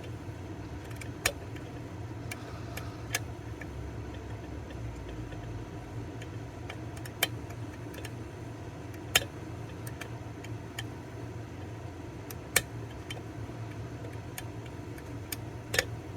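Sharp, irregular metallic clicks of a lock pick and tension wrench working the pins of an EVVA DPI pin tumbler lock during picking, over a steady low hum.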